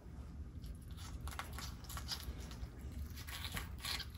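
Faint crackling and rustling as a cooked spiny lobster tail's shell is worked by hand inside a cloth towel, in short scattered bursts that are busiest near the end.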